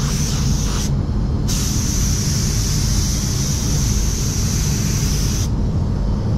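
Compressed-air spray gun hissing as it sprays fade-out thinner to blend the edge of the clear coat. The trigger is released briefly about a second in, then there is a longer pass that cuts off near the end, over a steady low rumble.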